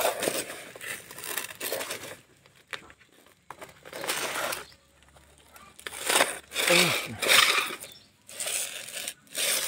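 Cardboard box and a plastic pouch being handled and torn open: rustling, crinkling and tearing in several bursts with short pauses between them.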